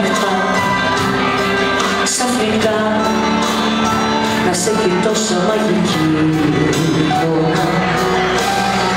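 A woman sings a pop song live into a microphone over amplified instrumental backing, heard through the venue's PA from within the audience.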